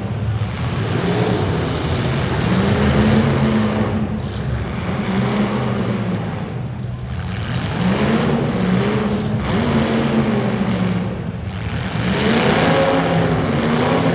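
Demolition derby car engines revving hard, the pitch climbing and dropping again several times over a steady, noisy din.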